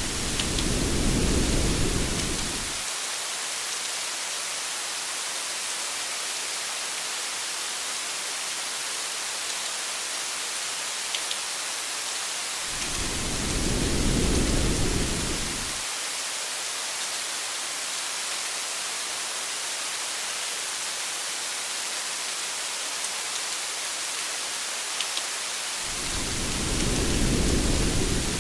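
Steady hiss of heavy rain, with a low thunder rumble that swells and fades three times, about 13 seconds apart.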